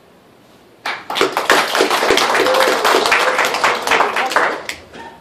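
A small audience clapping, starting about a second in and lasting about four seconds before dying away, with a voice calling out over the applause.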